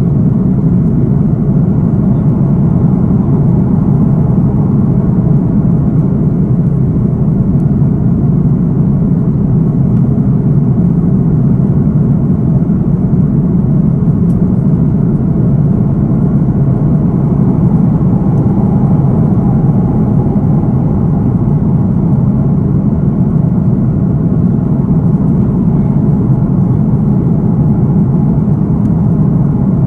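Steady, low-pitched cabin noise of an Airbus A330-900 airliner in cruise: the even rush of airflow and its Rolls-Royce Trent 7000 engines, heard from a window seat.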